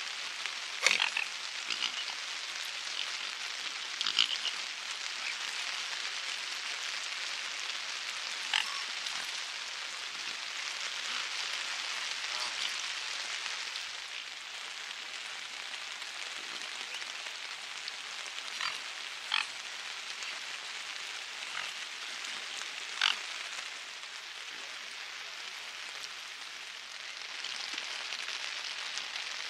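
Steady rain falling on lake water, a continuous hiss, with a handful of short, sharp calls from the swans and ducks on the water standing out, the loudest about a second in.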